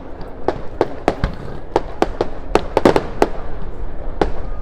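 Fireworks display going off in a fast, irregular series of about a dozen sharp bangs and cracks. Several come bunched together about three seconds in, with a last one near the end.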